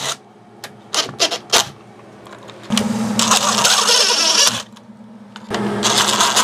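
Cordless drill driving screws into the ceiling to fasten wiring: a few light clicks, then two short runs of the motor spinning, the first lasting about two seconds and the second starting near the end.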